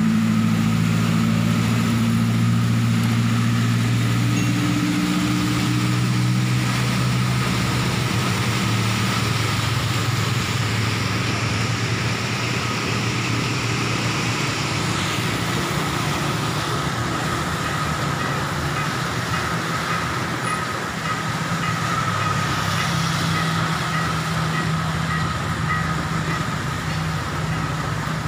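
Steady rain noise mixed with a motor vehicle running. Background music fades out over the first several seconds.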